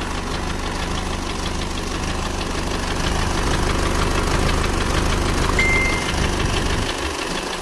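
Freshly overhauled Isuzu D-Max diesel engine idling steadily with a knocking clatter; its running is not yet smooth. The idle gets a little louder about three seconds in.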